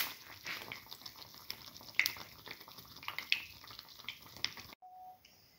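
A banana, egg and wheat-flour batter fritter shallow-frying in hot oil in a pan: a steady bubbling with frequent sharp crackles and pops, which stops abruptly near the end.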